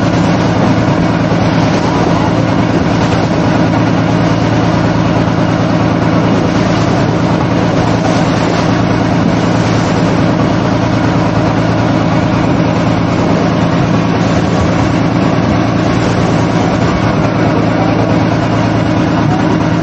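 Small tour boat's engine running steadily under way, a constant low drone, over the rush of water along the hull.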